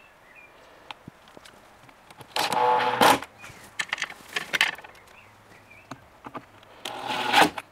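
Cordless drill/driver driving screws to fix a roller-door spiral guide to a cabinet panel: two short whirring runs about four seconds apart, with light clicks and knocks of handling parts between them.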